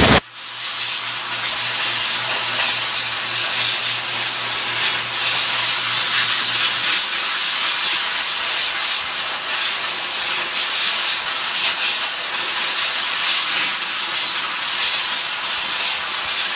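Compressed-air blow gun hissing steadily as it blows over a freshly vacuum-formed sheet of hot plastic to cool it.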